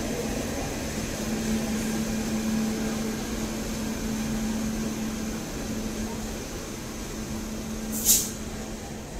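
A WAP-7 electric locomotive and its passenger coaches running past at close range: a steady noise with a steady low hum. A short, sharp hiss comes about eight seconds in.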